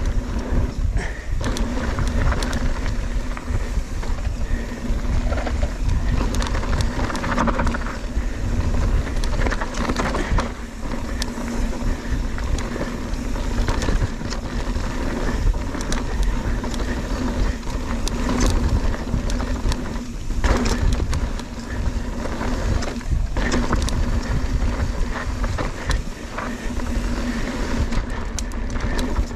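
Mountain bike riding a rough dirt trail: steady wind rumble on the microphone and tyre noise, with frequent knocks and rattles from the bike over bumps.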